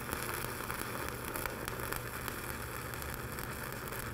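Stick-welding arc burning a 7018 5/32-inch electrode at about 190 amps: a steady, dense crackle as a bead is run.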